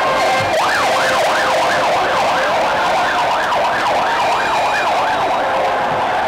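Emergency vehicle siren in fast yelp mode, its pitch sweeping up and down about three times a second, over a steady wash of street noise. The yelp starts about half a second in and stops just before the end.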